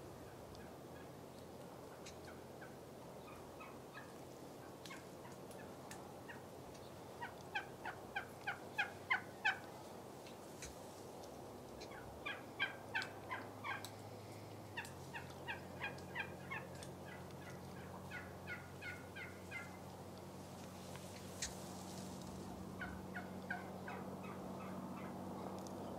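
Turkey yelping: about five runs of quick, evenly spaced notes, the loudest about eight to nine seconds in.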